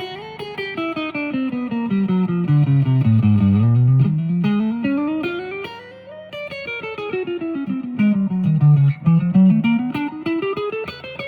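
Fernandes TEJ-70 electric guitar playing fast single-note runs that sweep down and back up in pitch twice.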